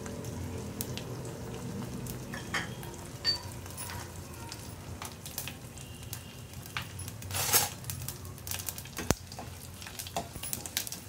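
A tempering of mustard seeds, cumin, fenugreek and dried red chillies sizzling in hot ghee in an aluminium pressure cooker, with scattered sharp pops and one louder crackle about seven and a half seconds in. Near the end a metal ladle stirs in the pan.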